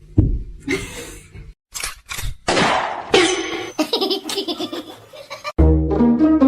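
Short bursts of laughter mixed with brief clip sounds, then background music with steady held notes starts about two-thirds of the way in.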